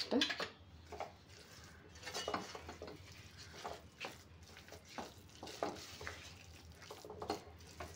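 A wooden spatula stirs thick, mashed rice-and-moong-dal pongal in a pressure cooker, making irregular soft scrapes and knocks against the side of the pot.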